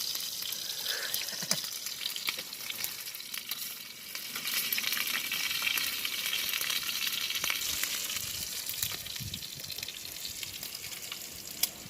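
Pieces of bird meat frying in hot oil, a steady sizzle with fine popping crackles that swells louder about four seconds in.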